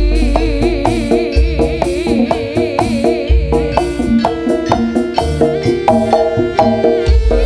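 Jaranan ensemble music through a PA: a Javanese kendang drum played by hand in quick strokes over steady melodic notes and a wavering high melody line, with a deep bass note roughly every two seconds.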